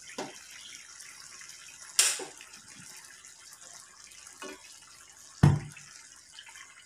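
Coconut-milk fish stew simmering in a stainless steel pot as a wooden spatula stirs through it. Two sharp knocks stand out, about two seconds in and near five and a half seconds, the second the louder and deeper.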